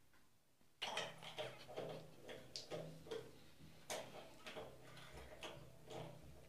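Tap parts and tools being handled during a faucet repair: a string of irregular clicks and light knocks that starts about a second in.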